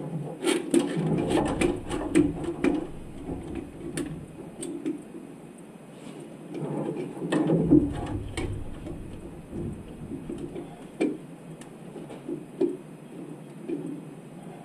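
Irregular clicks and knocks of metal parts and hand tools being handled during engine work, busiest about a second in and again around seven seconds in.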